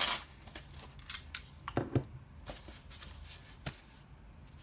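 Scattered small clicks and rustles of handling as a small metal pin is taken out of its packaging. The loudest is a sharp rustle right at the start.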